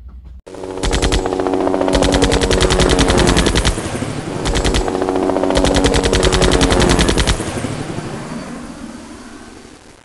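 Intro sound effect of automatic gunfire: about four bursts of rapid machine-gun fire over a steady low drone, fading out near the end.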